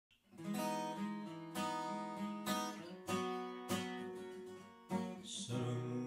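Acoustic guitar strumming an intro, a chord struck every second or so and left to ring.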